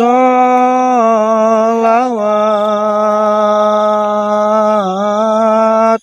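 A voice chanting sholawat, holding one long drawn-out syllable for about six seconds. The pitch wavers a few times before the note cuts off sharply at the end.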